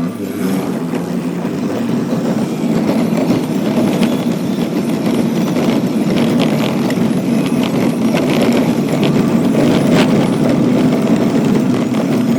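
Train running on rails: a steady, loud rumble with scattered light clicks from the wheels on the track.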